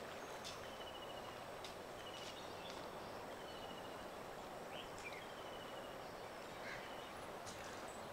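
Faint outdoor ambience: a steady hiss with a bird repeating a short trilled call every second or so, and a few brief higher chirps.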